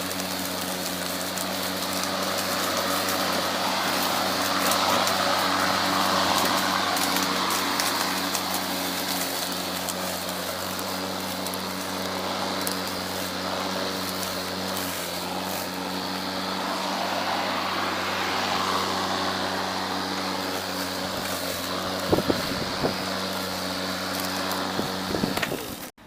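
Ego Power+ 56-volt battery-powered self-propelled lawn mower running while cutting grass: a steady electric motor and blade hum over a rushing sound. It cuts off suddenly near the end.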